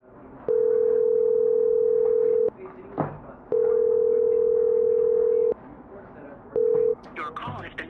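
Telephone ringback tone heard over a phone line: a steady single tone sounds for about two seconds, twice, with a click in the gap, then a third ring is cut short as the call is picked up by voicemail.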